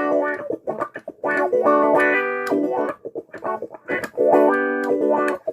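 Electric guitar played through an Ernie Ball wah pedal: three strummed chords, each left to ring for more than a second, with short choppy picked notes between them. The pedal is passing a working effected signal after its broken pads and traces were repaired.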